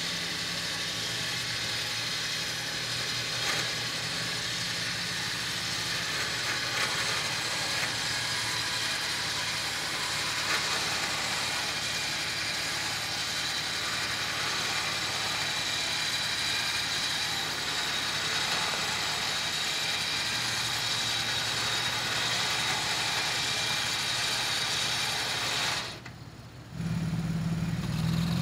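Badlands 12,000 lb electric winch on a Toyota FJ Cruiser reeling in synthetic rope under load, a steady geared whine over the idling engine as it pulls the truck forward. The winch stops near the end and a louder engine hum follows.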